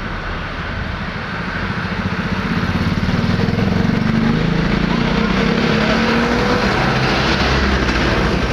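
Road traffic with a heavy diesel engine, likely a tour bus, drawing near. It grows louder from about two seconds in and then runs steadily.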